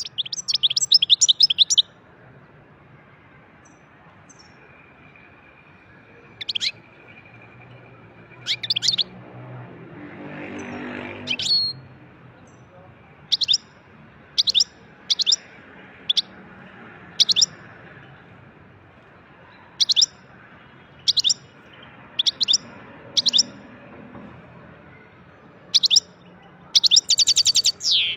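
European goldfinch singing: fast twittering trills at the start and again near the end, with single short high call notes scattered between.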